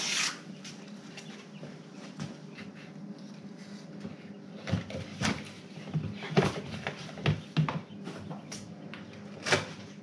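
Fabric rustling as a blanket is pulled off a plastic tote brooder, then a series of sharp knocks and clatters as a plastic lid is lifted and handled, the loudest near the end, over a steady low hum.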